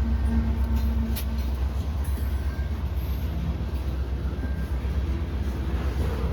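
Two CN diesel locomotives rumbling steadily as they go by, a heavy low drone, with one sharp click about a second in.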